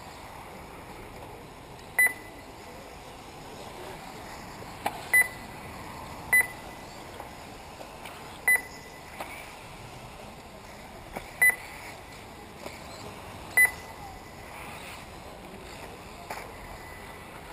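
Short electronic beeps from a lap-counting timing system, one each time a buggy crosses the timing line, about six of them at uneven intervals. A longer, fainter tone at the same pitch comes near the end, and steady outdoor background noise runs underneath.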